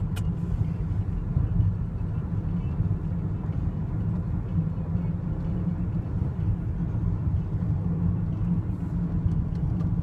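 Steady low road and engine rumble inside the cabin of a moving car, with a single sharp click right at the start.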